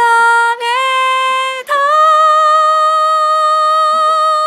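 Vocaloid 5 synthesized female singing voice playing a Japanese preset phrase, unaccompanied. It sings two short notes, then a long, higher note held for about three seconds with a slight vibrato.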